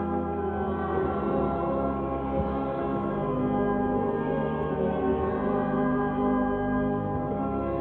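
Church organ playing slow, sustained full chords with a deep bass, the harmony shifting every second or so.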